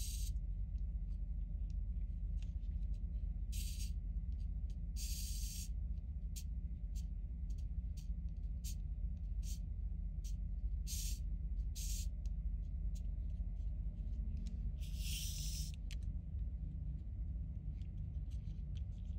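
Short plastic scrapes and clicks as toy vehicle parts are handled and fitted together, over a steady low hum. The longest scrapes come about five seconds in and again near fifteen seconds.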